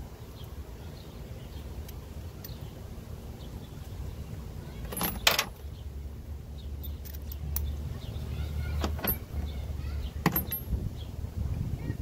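Metallic clinks and knocks of tools and parts being handled under the hood during a spark plug change, the loudest about five seconds in and more near the end, over a steady low rumble.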